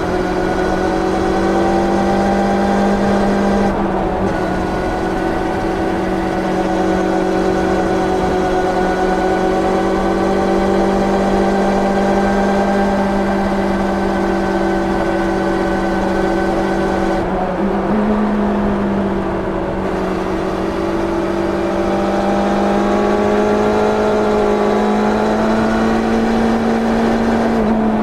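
1990 Yamaha FZR 600 inline-four with its stock exhaust, heard onboard, running at steady high revs under wind rush. About 17 seconds in the wind noise eases and the revs dip, then climb again.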